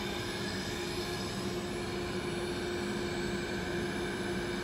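Automatic 3-ply flat mask machine running: a steady mechanical hum with several constant whining tones from its motors and drives.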